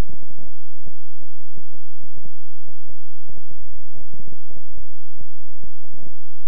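Synthesized healing-frequency audio: a steady low drone of several held tones under an irregular, rapid pulsing of soft thumps, about four or five a second.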